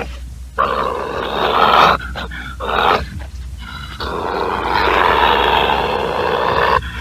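Badger growling in rough, noisy bouts: one starting about half a second in and lasting over a second, a short one near the three-second mark, and a long one from about four seconds in until near the end.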